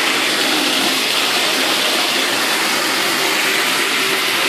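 Water running from a bathtub faucet into the tub, a steady hiss that does not change.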